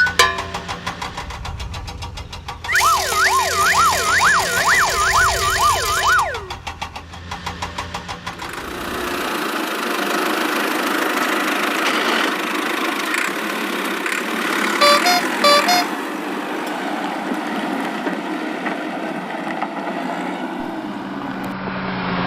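Cartoon vehicle sound effects: a low chugging engine, then a wavering siren-like wail for about four seconds, then a long, steady, noisy engine rumble with a couple of short beeps partway through.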